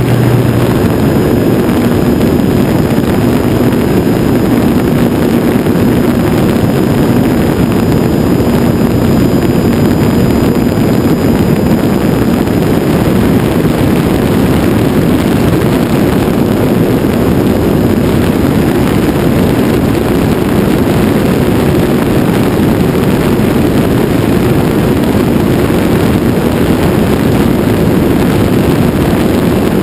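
Radio-controlled model airplane's motor and propeller running steadily, heard close up from a camera mounted on the plane, mixed with dense rushing airflow noise. A thin high whine sits above it and falls slightly in pitch over the first dozen seconds.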